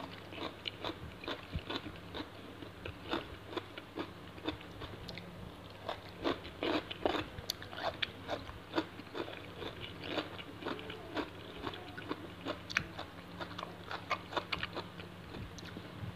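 Close-up crunchy biting and chewing of raw shrimp in fish sauce, made crisp by a soda-water soak: irregular wet crunches and clicks, a few each second, over a faint steady hum.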